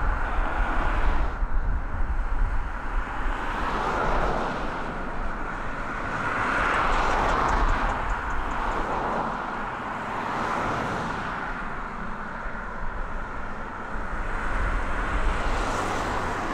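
Small twin-engine propeller plane taking off and climbing past, its engine and propeller noise swelling to its loudest about seven seconds in, then fading.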